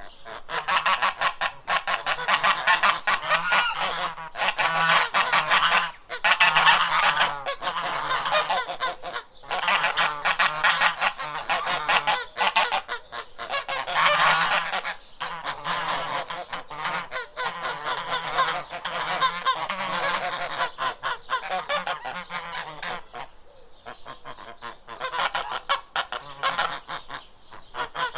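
A flock of geese honking, many calls overlapping in a dense, continuous chorus, with a few brief lulls.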